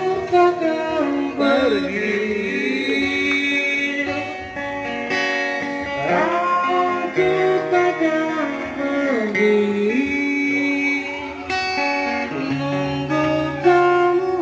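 Live amplified music from a small PA speaker: a male singer holding long notes that slide up and down in pitch, over guitar accompaniment.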